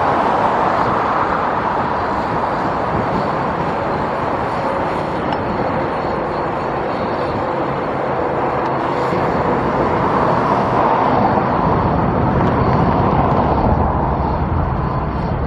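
Steady vehicle engine and road noise, with a low rumble that builds over the last few seconds as a heavier vehicle comes closer.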